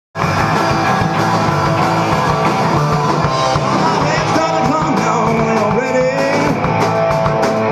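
Rock music with guitar, cutting in at once.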